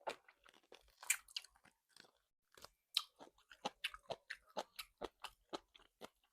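Close-up chewing: a person eating with the mouth near the microphone, a quick run of short wet clicks about three to four a second.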